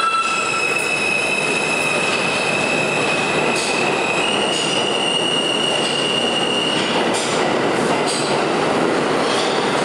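Siemens-powered R160B subway train pulling out of the station. A high electric whine from the traction motors holds one pitch, steps up a notch about four seconds in, then fades about seven seconds in, over a steady loud rumble of wheels on rail.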